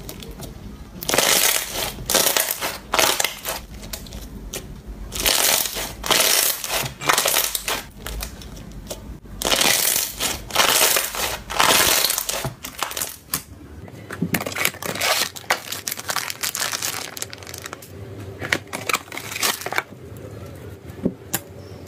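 Slime being squeezed and kneaded by hand, with loud bursts of dense crackling and popping three times in the first half. In the latter part, softer scattered clicks and squishes come as a thicker slime is pressed.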